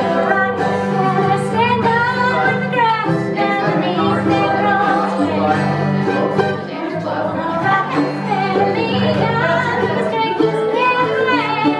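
Gospel bluegrass performed live: a woman sings the melody over a mandolin and a strummed acoustic guitar.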